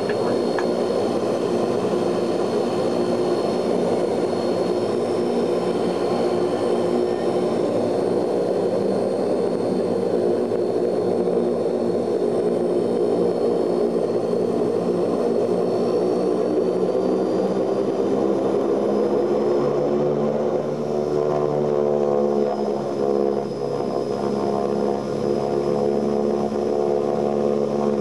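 The four turboprop engines of an Ilyushin Il-18, heard from inside the cabin as the airliner moves on the ground: a steady propeller drone. About two-thirds of the way through, the engine pitch shifts and settles into a clearer, steady hum.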